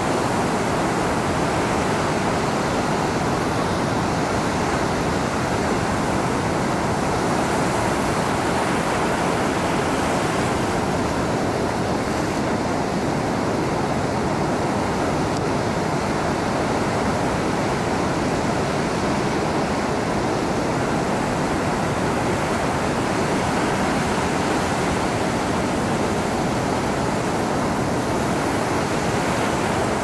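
Ocean surf washing over a rocky shore, a steady, even rush of noise with no separate wave crashes standing out.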